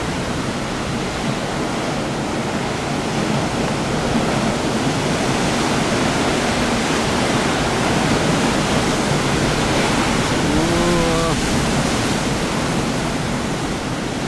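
Heavy surf breaking and churning over coastal rocks, a loud, steady rush of foaming water: rough seas stirred up by a typhoon. About ten and a half seconds in, a brief low voiced sound rises and falls over it.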